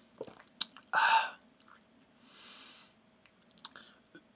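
Mouth sounds of someone tasting a sip of drink: small lip smacks and clicks, a short breathy exhale about a second in, and a softer breath out a little later.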